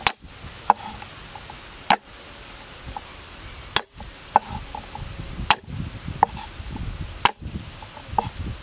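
A large broad-bladed knife chopping garlic cloves on a thick round wooden chopping block. About nine sharp knocks of the blade on the wood come at an uneven pace, roughly one a second.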